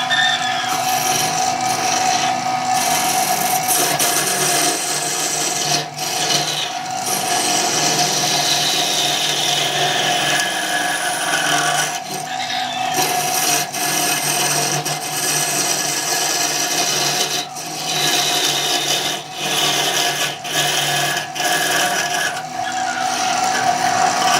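Wood lathe running with a tool scraping against the spinning wood: a steady motor hum under a rasping hiss that breaks off briefly several times.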